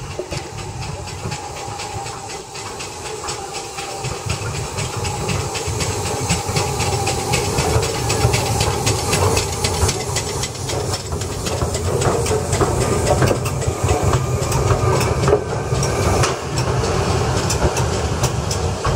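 LMS Royal Scot class steam locomotive 46100 'Royal Scot' passing slowly at close range. Steam hisses, and its wheels and motion make many sharp clicks. The sound grows louder over the first several seconds as the engine comes alongside, then stays loud.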